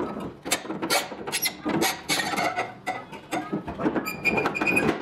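A wrench working the rusty door-hinge bolts of an old truck cab: irregular metal clicks and knocks, with a few short high-pitched squeaks a little after four seconds in as the door moves.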